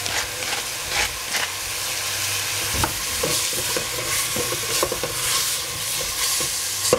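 Cauliflower and other vegetables sizzling in a stainless steel pot while a wooden spoon stirs them, with repeated scrapes and knocks of the spoon against the pot.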